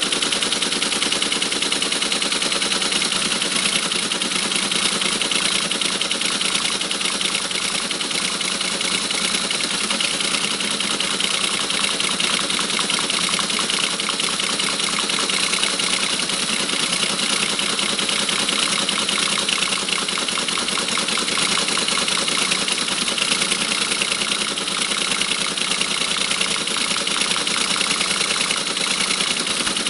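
ASR 33 Teletype printing continuously: its typing mechanism clatters in a rapid, even stream of strikes, with a steady hum beneath.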